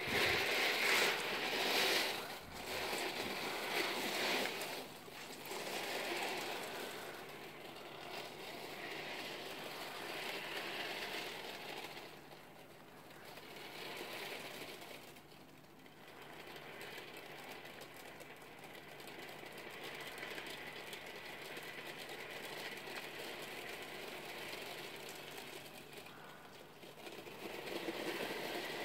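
Nearly three thousand 8 mm steel ball bearings rolling and clicking against one another as their tray is tilted and shaken by hand: a continuous rattle that swells and fades with the movement, loudest in the first few seconds and growing again near the end.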